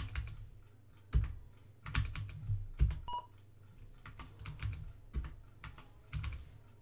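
Computer keyboard keys clicking as numbers are typed in and Enter is pressed, with one short beep about three seconds in from the emulated Apple II speaker, sounded by a 6502 assembly routine that toggles the speaker at the entered pitch and duration.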